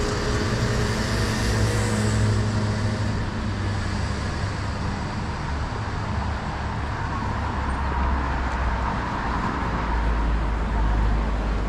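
Steady city traffic noise: a low rumble of vehicles running on nearby streets, with an engine's hum a little more distinct in the first couple of seconds.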